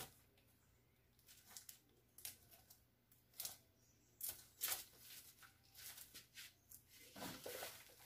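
Faint rustling and tapping of vinyl LP sleeves being flipped through on a packed record shelf, in short scattered strokes.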